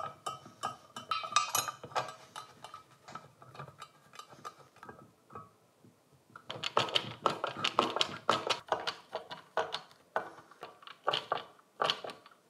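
Metal screws and a metal mounting bracket being handled and screwed onto a plastic water filter housing head with a screwdriver: a run of small clicks, taps and scrapes, sparse at first and busier from about halfway.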